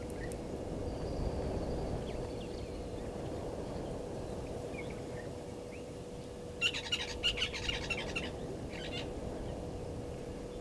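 Blacksmith lapwing giving a rapid run of sharp, metallic 'tink' calls about two-thirds of the way through, then a shorter burst a second later. Underneath are a steady low hum and a few faint chirps from other birds.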